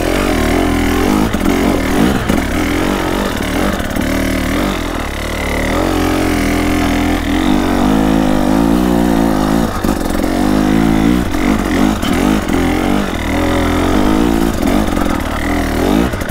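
Dirt bike engine ridden hard on a trail, its pitch rising and falling over and over as the throttle is opened and closed through the gears.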